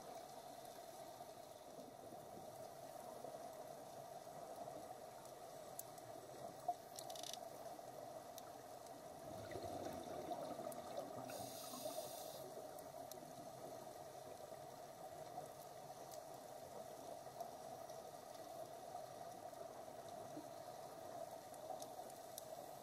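Muffled underwater sound of a scuba dive: a steady hum with the bubbling rush of a diver's exhaled air, swelling louder about nine to twelve seconds in, and one sharp click near seven seconds.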